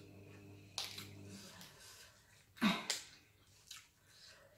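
Short breathy vocal sounds from a person eating: a faint one about a second in and a louder huff with a falling voice about two and a half seconds in, amid small rustles and ticks of lettuce leaves being handled. A low background hum stops about a second and a half in.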